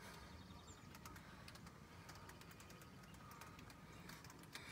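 Near silence with faint, scattered small clicks as a wire brake-pad retaining clip is worked out of a disc brake caliper by hand.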